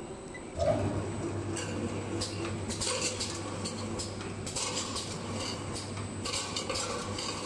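Automatic tin can seaming machine starting up about half a second in, then running: a steady motor hum with irregular metallic clicking and clattering of cans moving along its conveyor.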